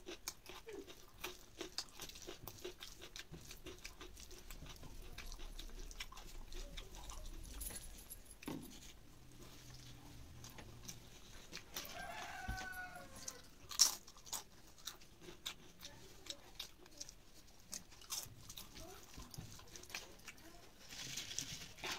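Close-up eating sounds: wet chewing and mouth clicks as rice and curry are mixed by hand and eaten, with a sharp click about two-thirds through. A short falling call sounds in the background about halfway through.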